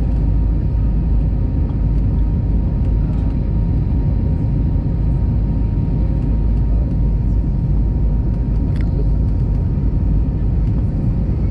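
Airbus A320 cabin noise during the climb after takeoff: the jet engines and rushing air make a loud, steady low rumble, with a thin steady whine above it.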